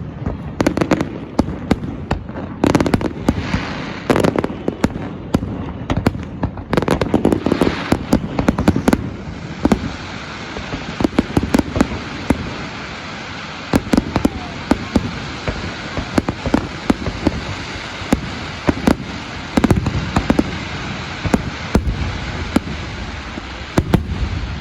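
Fireworks going off in rapid succession: many sharp bangs and booms over a steady crackle, with bursts coming in clusters several times.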